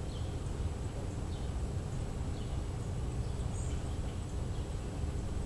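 Outdoor morning ambience: faint, scattered bird chirps over a steady low rumble.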